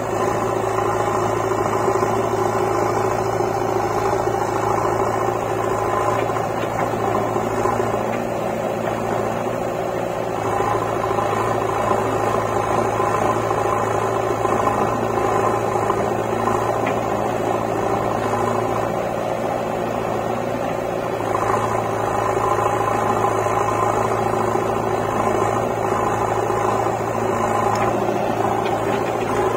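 Diesel engines of a JCB 3DX backhoe loader and a tractor running steadily, growing a little louder and easing off a few times as the backhoe digs and dumps mud.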